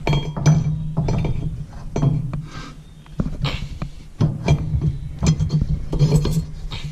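Irregular metallic clinks and knocks as an S400 turbocharger housing is wiggled against the exhaust manifold studs and flange while being fitted, over a steady low hum.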